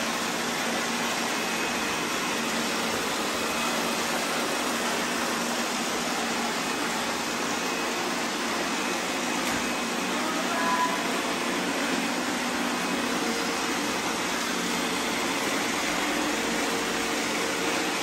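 Several robot vacuum cleaners running at once on a tiled floor, a steady hum of their motors and brushes as they sweep up confetti.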